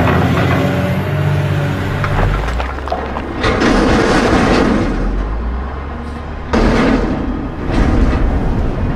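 Diesel excavator and dump truck running at work for about two seconds. Then a logo sting: a deep rumble with bursts of crashing, crumbling noise about three and a half, six and a half and eight seconds in.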